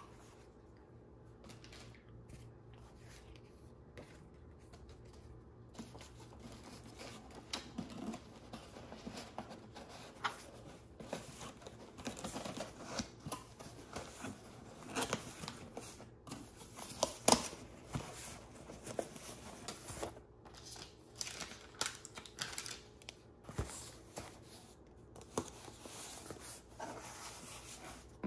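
A cardboard shipping box being handled as it is packed and its flaps folded shut: irregular rustling and scraping with scattered sharp clicks and knocks, the loudest knock a little past halfway.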